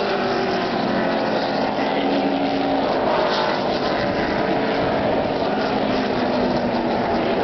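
The pushrod V8 engines of a field of NASCAR Cup stock cars running at low speed as the cars pull off pit road. Several engines are heard together as a steady sound, their pitches shifting slightly.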